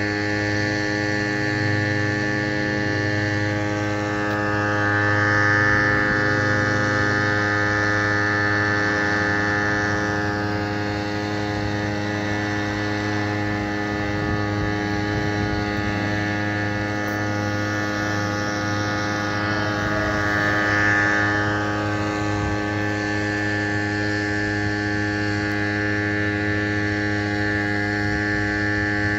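Steady mechanical hum made of many fixed tones, with a higher hiss that swells up twice, about five seconds in and again about twenty seconds in.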